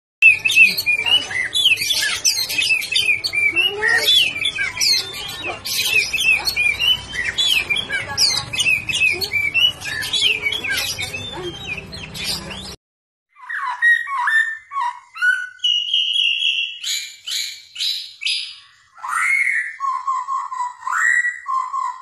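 Piebald white-rumped shama singing a fast, dense, varied song of whistles and chattering notes. About 13 seconds in, the sound cuts to a bird singing sparser, clearer whistled phrases with short gaps between them.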